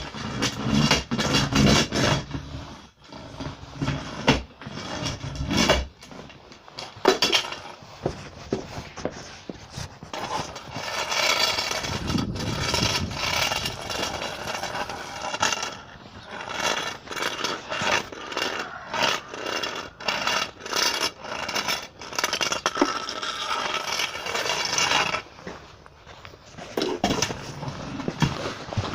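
Irregular scraping, rubbing and knocking, as of hard parts being handled and moved against each other.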